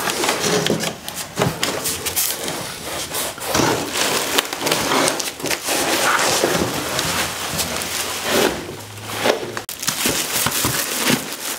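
Cardboard box and white packing material being handled: steady rustling, crinkling and scraping with small knocks, as an old cylinder head is set into the box and packed around.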